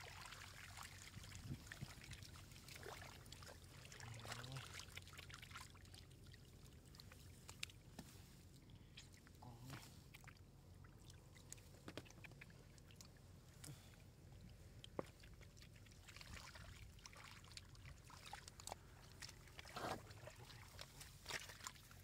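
Quiet, faint trickling of shallow muddy water with scattered small splashes and clicks, as stranded fish flap about in it.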